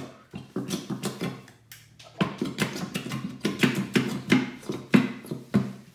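A plastic squeeze bottle of glue held upside down and squeezed over and over, spluttering out glue and air in a run of short wet squirts that come several a second from about two seconds in.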